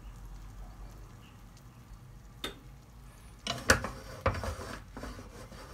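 Beaten egg cooking quietly in butter in a nonstick pan, with one click about two and a half seconds in. From about three and a half seconds in comes a run of sharp clicks and scrapes as the setting egg is stirred in the pan.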